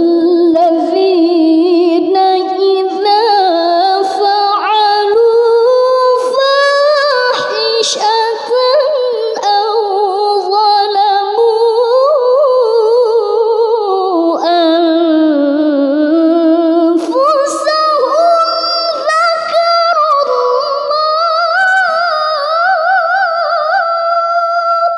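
A woman's voice reciting the Qur'an in melodic tilawah style: one long unbroken phrase full of ornamented turns of pitch, ending on a long held note.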